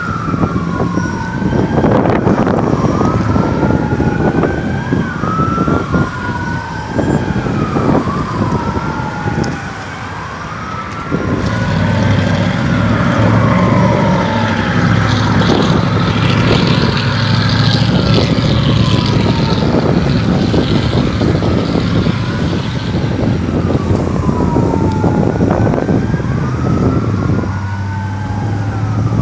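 Emergency vehicle sirens wailing, each rising and falling about every two seconds, with at least two sirens overlapping out of step. A low steady engine rumble comes in about a third of the way through and runs under the sirens.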